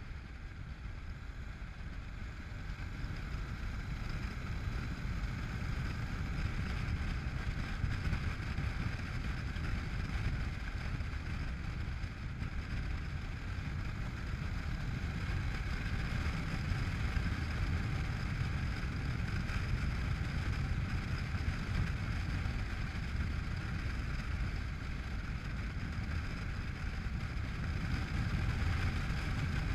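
Honda NC700X motorcycle's parallel-twin engine running at road speed, with wind rushing over the microphone. It gets a little louder over the first few seconds, then holds steady.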